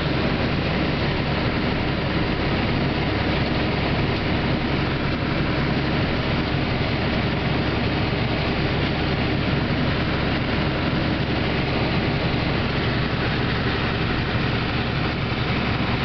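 Steady drone of heavy farm machinery: a John Deere combine and the tractor pulling a grain cart beside it, running together while the combine's unloading auger pours shelled corn into the cart.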